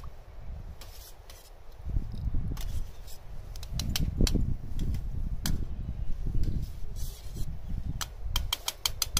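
Metal spoon scraping and clinking against a small stainless steel pot while stirring soup, with a run of quick clinks near the end. A low rumble runs underneath.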